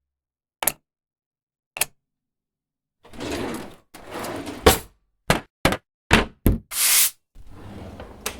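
A run of separate short sound effects cut together with dead silence between them: two sharp knocks early, then a quick series of thuds and knocks mixed with a couple of longer noisy rushes and a faint hiss.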